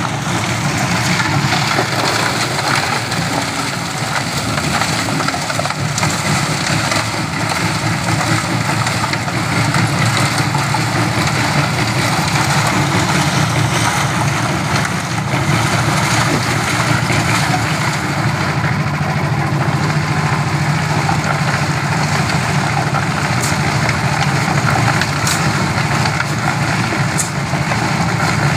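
Engine of a small portable drum concrete mixer running steadily while its drum turns.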